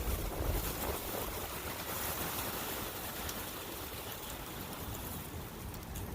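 Wind blowing steadily over a brook running nearby, with low gusty rumble from wind on the microphone.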